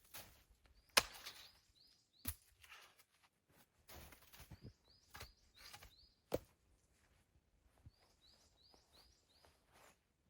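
A few sharp knocks among soft rustling, the loudest about a second in and another near the middle, while a small bird gives short high chirps in quick groups of three or four.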